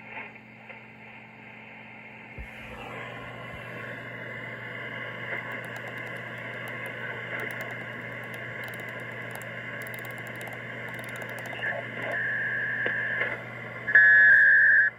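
Homebrew SSB receiver on the 40-meter band playing band noise through its speaker over a low steady hum. The noise grows louder about three seconds in, after the bandpass filter's variable capacitor is turned. Near the end, tuning across the band brings in steady carrier whistles, the last one loud and about a second long.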